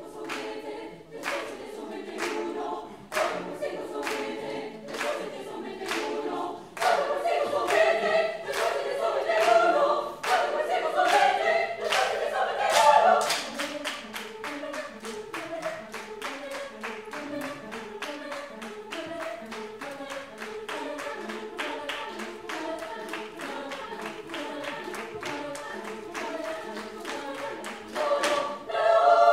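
High school girls' choir singing a cappella, with a steady pattern of hand claps in time through the song. The singing is loudest in the middle, drops softer, then swells again near the end.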